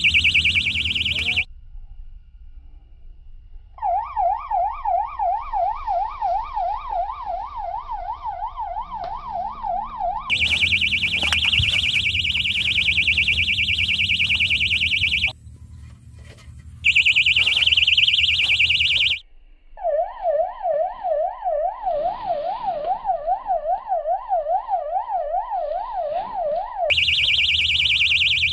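Electronic siren alarm. It switches back and forth between a fast high warble and a lower wail that rises and falls about three to four times a second, with short gaps between the patterns.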